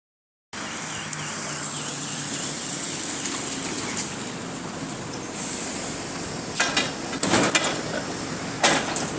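A bus running, heard from inside the passenger cabin: a steady engine and road noise with a thin high whine, and a few sharp knocks and rattles about two-thirds of the way in and again near the end.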